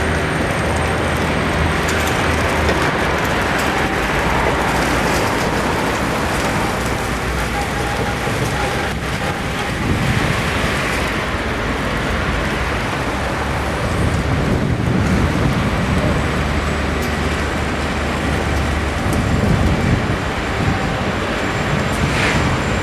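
Heavy construction machinery at work: the diesel engines of excavators running, a dense steady rumble and hiss that swells louder several times, with a few light knocks.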